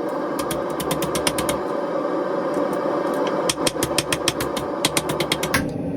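A small round-headed hammer strikes hot quarter-inch square stainless steel in quick runs of light blows, shaping the spoon bowl of a bar stirrer. Under the blows runs a steady background roar.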